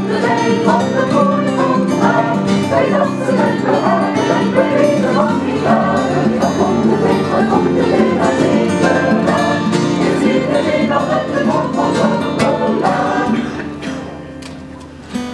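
Amateur choir singing in parts with guitar accompaniment, the sound fading away near the end as a song closes.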